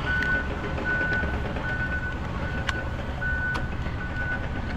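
Backup alarm of a nearby construction vehicle beeping steadily, about one beep every three-quarters of a second, over a low engine rumble, with a couple of sharp clicks.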